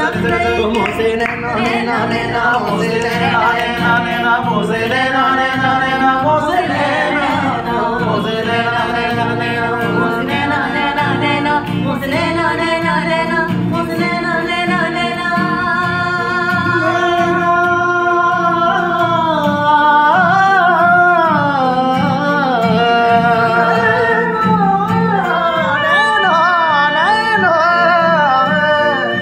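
Unaccompanied-style jam singing: voices holding long notes, then breaking into wavering, ornamented runs, over a steady low tone underneath.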